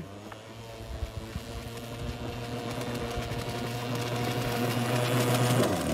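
Small string-trimmer engine of an RC racing boat running flat out at a steady high pitch and growing louder as the boat approaches. Its pitch dips briefly near the end.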